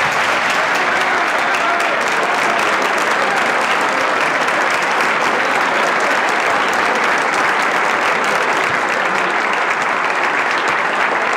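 A large audience giving a standing ovation: many people clapping in steady, dense applause.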